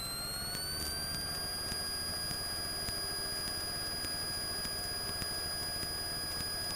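Cessna 172M's engine and propeller running at climb power, heard as a steady drone with a high whine whose pitch rises slightly about a second in and then holds steady.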